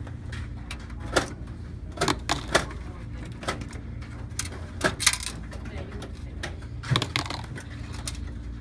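Scattered metallic clicks and clunks as hard drives and their fittings are worked loose in a desktop computer's steel drive cage, over a low steady hum.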